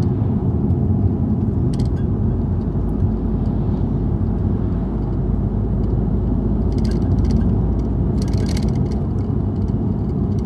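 Car cabin noise while driving on a highway: a steady low rumble of the engine and the tyres on the road. A few short bursts of faint clicking come about two seconds in and again near the end.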